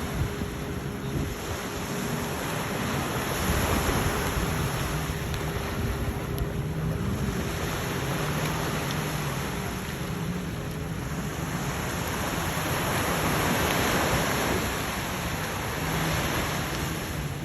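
Sea surf washing onto the beach, swelling and falling back every few seconds, with wind buffeting the microphone.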